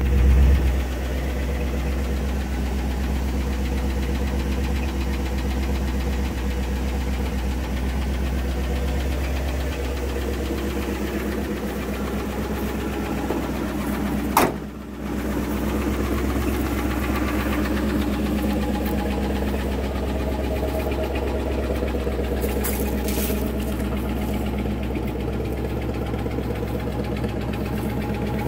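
1972 Ford F-350 wrecker's engine idling steadily, running again after a new fuel pump was fitted. It is louder for the first second, and a single sharp knock comes about halfway through.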